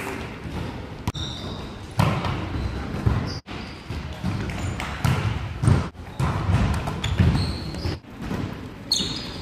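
Volleyball being played in a large sports hall: the ball struck and bouncing now and then, short high shoe squeaks on the court, and players' voices, all echoing in the hall.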